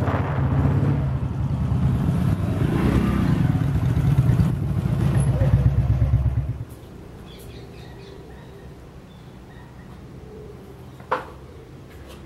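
Royal Enfield's single-cylinder motorcycle engine running with a low, pulsing beat, then switched off suddenly about seven seconds in. After that only faint background sound remains, with one sharp click near the end.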